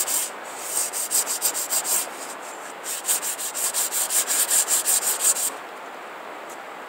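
Sandpaper rubbed by hand along the edge of a rawhide-backed wooden bow: quick back-and-forth strokes, several a second, with a short break about two seconds in, stopping about five and a half seconds in.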